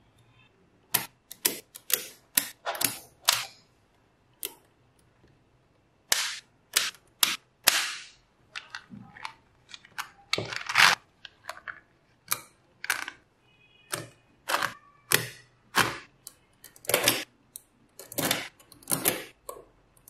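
Small magnetic balls snapping and clacking together as strips of them are pressed onto a magnet-ball model: a run of sharp, irregular clicks, some in quick pairs, with a pause of about two seconds near the start.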